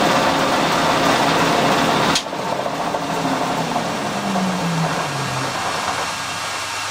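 Colchester metal lathe running, then switched off about two seconds in, when the noise drops suddenly. Its drive keeps turning with a hum that falls steadily in pitch as the spindle and wooden faceplate coast down.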